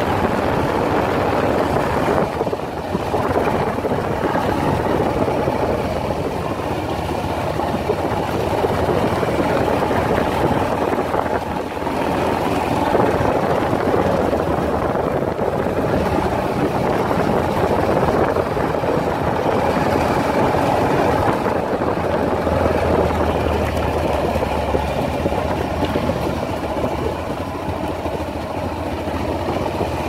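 Yamaha XT660's single-cylinder engine running steadily as the motorcycle rides slowly along a dirt road.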